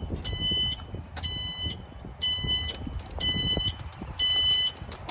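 Golf cart's reverse warning beeper: five high-pitched beeps, about one a second, each lasting about half a second, over a low rumble.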